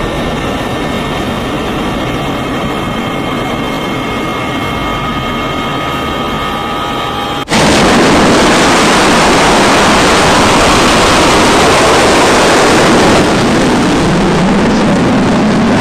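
Steady jet-engine noise with a faint high whine, then about halfway through an abrupt cut to a much louder, even noise: a twin-engine carrier fighter jet's engines at full thrust for a ski-jump takeoff from the carrier deck.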